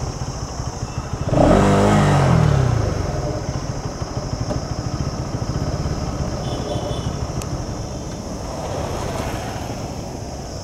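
Bajaj Pulsar NS200's single-cylinder engine briefly revved about a second and a half in, the revs falling away, then running low and steady as the bike rolls slowly. The bike carries a nasty noise that the rider traces to its very dirty drive chain.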